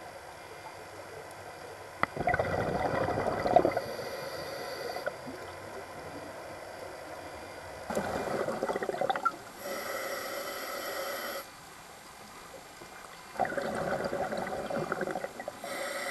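Scuba regulator breathing underwater: three loud gurgling bursts of exhaled bubbles, roughly every five to six seconds, with a quieter hiss of inhaling between them.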